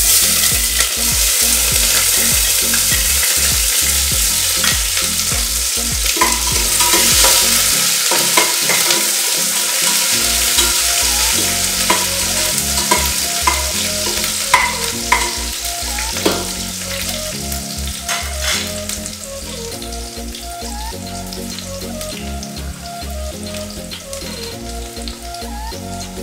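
Sliced onions and green chillies sizzling in hot coconut oil in a stainless steel pressure cooker, stirred with a metal slotted spoon that clicks against the pot. The sizzle starts suddenly as they go in, is loudest for the first several seconds and eases off gradually.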